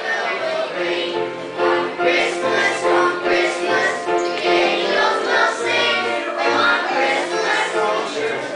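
Children's choir singing a Christmas song, holding sung notes in a steady rhythm.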